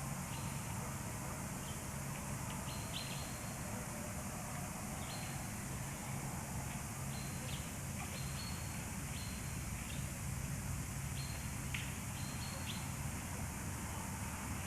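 Steady background hiss and a low hum, with short high chirps coming every second or so, some in quick pairs.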